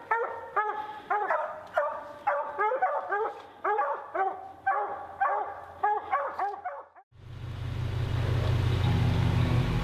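A hunting hound barking in a quick, even rhythm, about three barks a second, which stops after about seven seconds. A steady low vehicle engine rumble then takes over.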